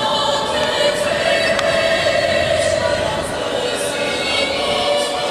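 Music of long held chords, heard over the steady noise of a crowd.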